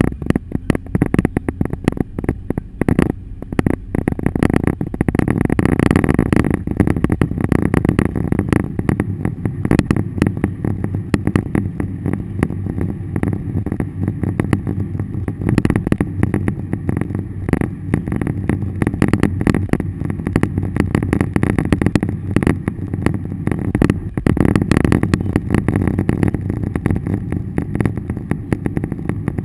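Vehicle driving through a storm, heard from inside: a steady low engine and road rumble under a dense, irregular patter of small impacts on the car's body.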